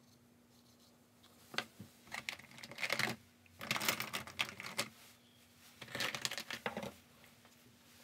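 Metal paint tubes being handled and picked through on a wooden table, clicking and crinkling in three short bouts, over a faint steady hum.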